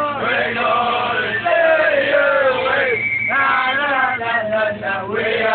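Drunk male football supporters singing a chant together inside a minibus, loud and continuous, with a brief break about three seconds in.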